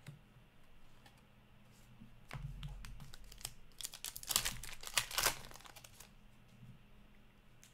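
An Upper Deck hockey card pack being torn open by hand, its wrapper crinkling in a run of sharp crackles, loudest about four to five seconds in.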